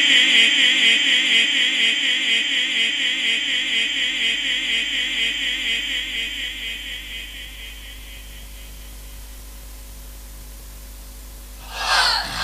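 Quran recitation: a long held, chanted note of the reciter's voice through the microphone, trailing away over about seven seconds. Then a low steady hum, and a brief burst of sound near the end.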